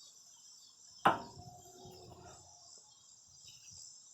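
Crickets chirping in a steady high chorus, with one sharp metallic knock about a second in that rings briefly as it fades.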